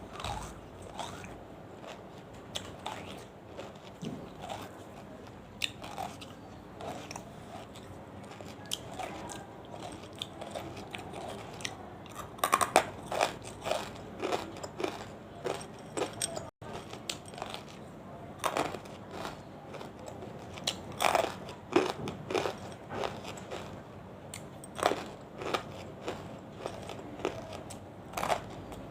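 Close-up mouth sounds of someone biting and chewing banslochan (bamboo silica), hard chalky lumps that give sharp, irregular crunches. The crunches grow louder and come more thickly about halfway through.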